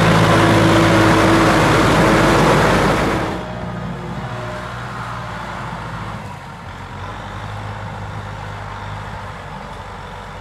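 Kubota M6040SU tractor's diesel engine running steadily as it pulls a loaded trailer through deep mud. It is loud and close at first, then drops abruptly about three seconds in to a fainter, more distant engine sound that fades further about six seconds in.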